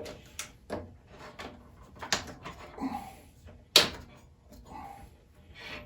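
Scattered knocks, clicks and handling noise from hands working a stretched urethane tire onto a bandsaw wheel, with one sharp loud click a little before four seconds in.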